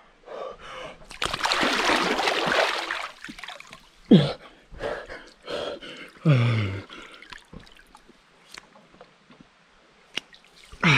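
A swimmer ducks under cold river water with a splash lasting about two seconds, then gasps twice from the cold.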